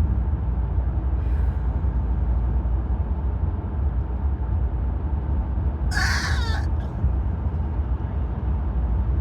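Steady low road rumble of a moving car heard from inside the cabin, with a woman's single loud, short hiccup about six seconds in.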